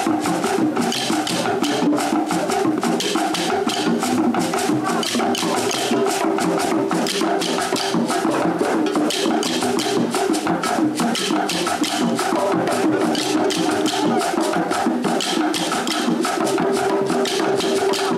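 Background music with a steady, fast percussive beat of clicks over sustained lower tones.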